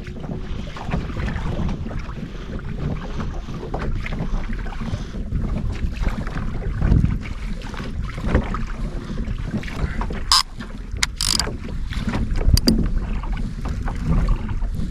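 Wind buffeting the microphone on a kayak out on open water, a steady low rumble. A few short, sharp clicks or rattles come about two-thirds of the way through.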